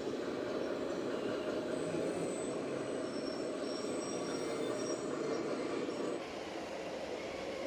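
RC model vehicle running: a steady rough mechanical noise with faint high whines above it, changing abruptly to a slightly quieter sound about six seconds in.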